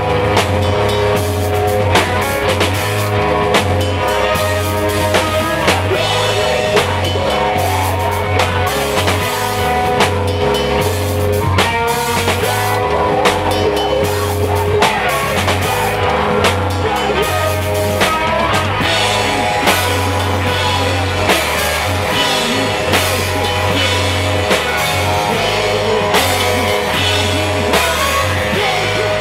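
A rock band playing live and loud: a drum kit hit hard with dense cymbal and snare strikes over an electric bass line and guitar, with no break.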